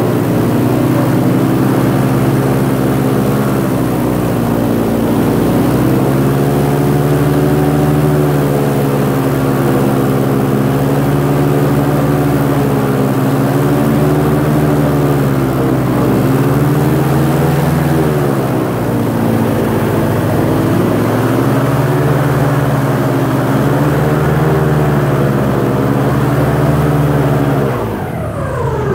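Airboat's engine and propeller running at speed, the pitch rising and falling several times as the throttle is eased and opened. Near the end the engine drops off briefly, then picks up again.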